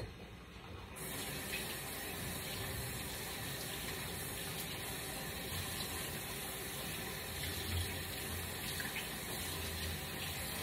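Kitchen faucet turned on about a second in, then running steadily into the sink.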